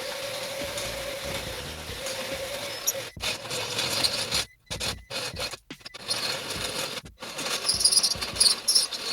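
Power tool with a metal-cutting bit grinding into the steel of a scooter's steering head: a steady motor whine with a hissing, scraping cut, stopping abruptly several times and turning harsher and louder near the end.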